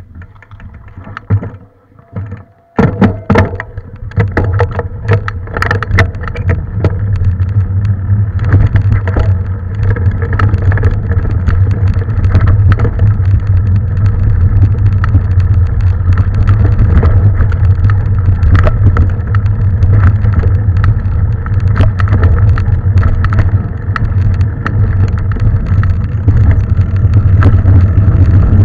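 Mountain bike ridden fast along a trail: wind buffets the microphone with a steady low rumble, while the bike rattles and clicks over bumps. It starts abruptly about three seconds in.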